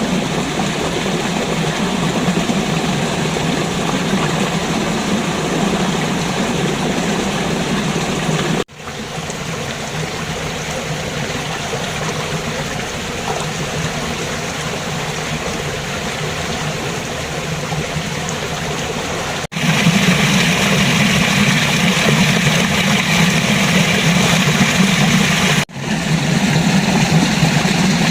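River water flowing, a steady rushing with no tones in it. It is spliced from several recordings: it cuts off sharply and resumes at a different level about 9, 20 and 26 seconds in.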